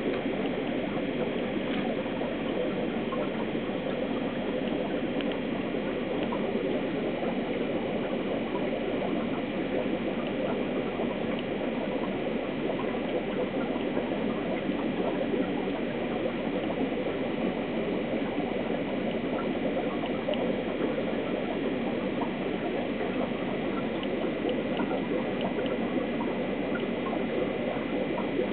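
Aquarium filtration running: a steady, unbroken fizz and trickle of water with a faint high tone over it.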